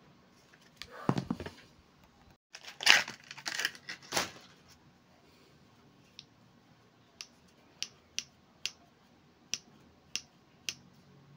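Handling of steel pliers: rustling and crinkling as they are turned over in a gloved hand, loudest a few seconds in, then about eight sharp separate clicks as the pliers are worked one-handed.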